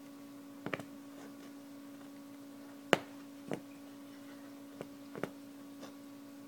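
Tambour hook punching through fabric stretched taut in an embroidery hoop, giving a scattering of short, sharp clicks, the loudest about three seconds in, over a steady low hum.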